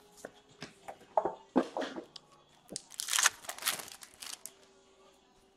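Trading cards being handled and shuffled, with light flicks and rustles, then a crackly burst about three seconds in as a foil card-pack wrapper is crinkled.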